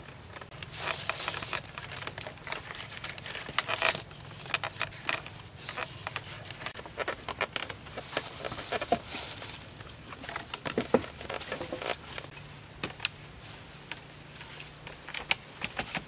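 Bamboo poles knocking and clicking together, with rustling, as a rope-lashed bamboo frame is handled, tied and climbed on: irregular small knocks, a few sharper ones about a second in, near four seconds and near eleven seconds.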